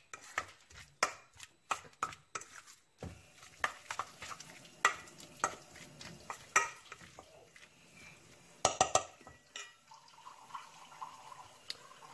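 Chunks of chicken being mixed with spices in a stainless steel bowl, with irregular clinks and knocks against the metal bowl.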